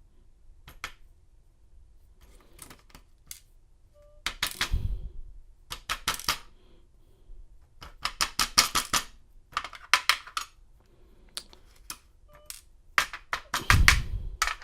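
Small lock pins (key pins) from a disassembled American 1100 padlock clicking and rattling against a hard surface as they are set out, in several quick clusters of tiny metallic ticks. Two duller thumps come about a third of the way in and near the end.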